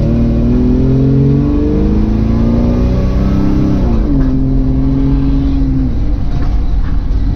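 Car engine heard from inside the cabin, accelerating with its pitch rising, then dropping sharply at a firm automatic-transmission upshift about four seconds in. The engine note holds steady for a couple of seconds, then fades under low road rumble.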